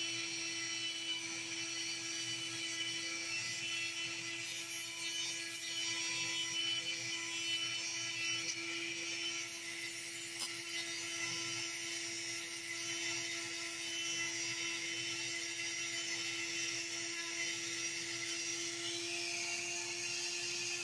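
Small hand-held rotary tool with an aluminum oxide sanding drum, running with a steady whine while it grinds an opal to shape.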